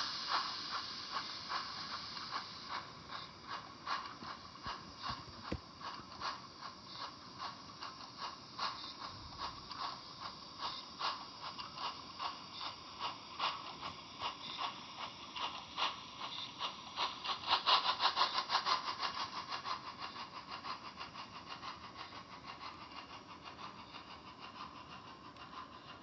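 Model train rolling slowly past, its metal wheels clicking in a steady rhythm over the rail joints, with a denser, louder run of clicks about two-thirds of the way through as the wheels cross the points.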